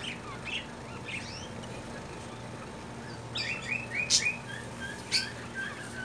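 Small caged parakeets chirping in short calls, with a quick run of falling chirps about halfway and two sharp, higher calls soon after, over a steady low hum.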